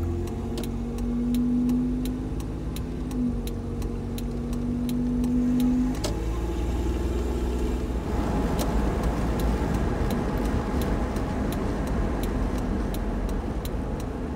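A 1995 Toyota 4Runner pulling away from a stop, heard from inside the cabin with the window open. The engine pulls with a slowly rising tone for about six seconds, then eases off. Steady road and tyre noise takes over for the rest, with a light regular ticking throughout.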